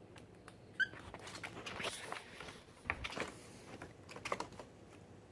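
Brown paper bag crinkling and rustling as cockatiels climb about in it, with small irregular taps and scrapes from their feet, and one short high chirp just under a second in.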